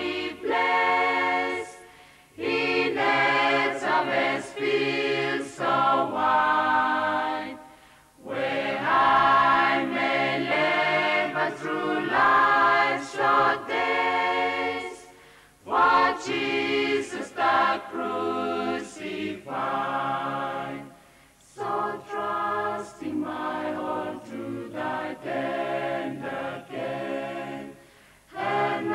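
Mixed choir of men and women singing a gospel hymn a cappella, in long phrases with short breaks for breath between them.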